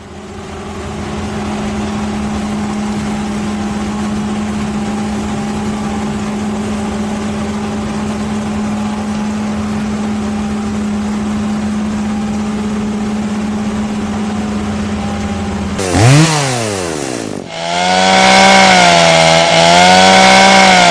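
Chainsaw engine running at a steady high pitch, then revved up and down sharply about sixteen seconds in and held louder, with a slightly wavering pitch, near the end.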